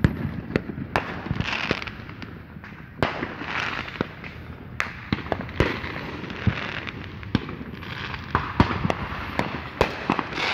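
Fireworks going off: a run of sharp bangs at irregular intervals, with stretches of crackling between them.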